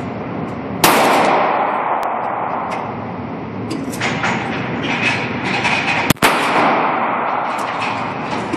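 Glock 29 pistol in 10mm Auto fired twice, about five seconds apart. Each shot is a sharp crack with a long echoing tail, over a steady background hum.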